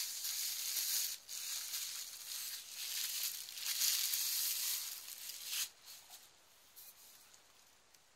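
Plastic bubble wrap crinkling and rustling as a wine bottle is pulled out of it, stopping about two-thirds of the way through; a few faint clicks follow.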